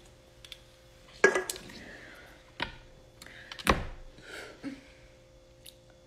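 Scattered short knocks, rustles and breaths, the loudest a little over a second in, as a just-chugged soda can is lowered and set down.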